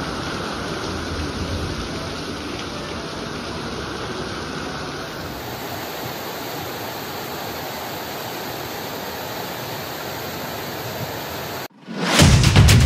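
Heavy tropical-storm rain pouring down in a steady downpour, the sound changing character about five seconds in as another rain recording takes over. Near the end it cuts off and loud music with drum beats starts.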